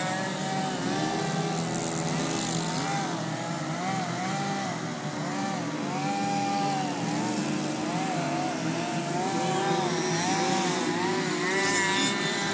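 A group of radio-controlled 3D aerobatic planes hovering together, their engines and propellers running at once in an overlapping drone. The pitches keep rising and falling in short swells as the pilots work the throttles to hold the hover.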